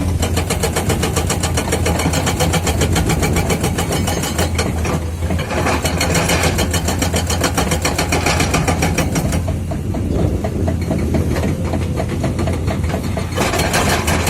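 Hydraulic breaker on a Komatsu 210 excavator hammering rock in rapid, even blows over the steady run of the excavator's diesel engine. The hammering breaks off briefly about four seconds in, slackens for a few seconds near the end, then picks up again.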